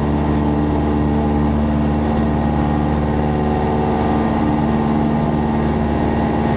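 Single-engine light aircraft's piston engine and propeller running steadily, heard from inside the cockpit, with an even drone that holds one pitch.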